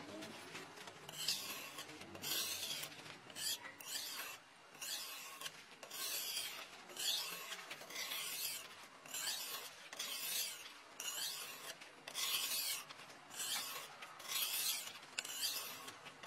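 An abrasive hand tool, such as a file or stone, scraping in repeated hand strokes across the flat of a steel knife blank, a little more than one stroke a second, each stroke a short hiss.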